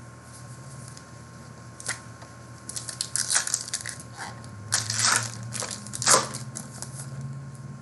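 Foil trading-card pack wrapper crinkling and crackling as it is torn open and crumpled, in several sharp rustles, loudest about five and six seconds in.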